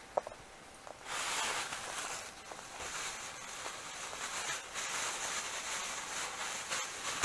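Thin plastic bag rustling and crinkling as a caught fish is put into it by hand, starting about a second in after a single faint click.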